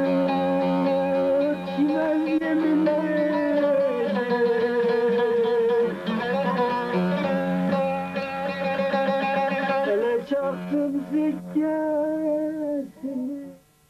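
Turkish folk music: a plucked string instrument plays a melody that bends in pitch over a steady drone. The music breaks up and cuts off suddenly just before the end.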